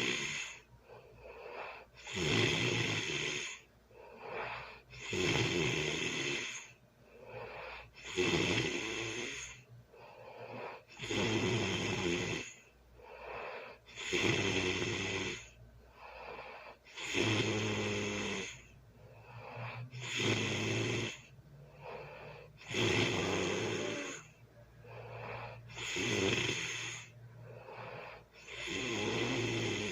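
A sleeping person snoring loudly in a steady rhythm, one loud snore about every three seconds with softer breaths in between.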